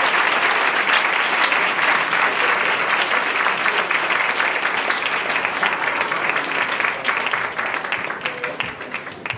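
Audience applauding: dense, steady clapping from a large seated crowd that thins out and fades over the last couple of seconds.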